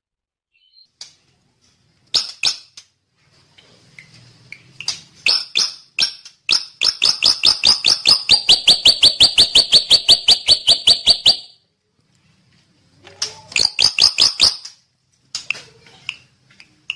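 Drongo singing: short bursts of sharp, rapidly repeated chirps, with a long even run of about seven notes a second in the middle.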